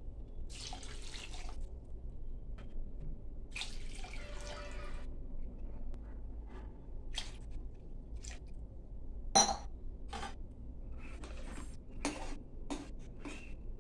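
Water poured from a glass into an aluminium pressure cooker of chicken and rice, in splashing pours during the first five seconds. Then a ladle stirring in the pot, with sharp clinks against the cooker, the loudest about nine seconds in.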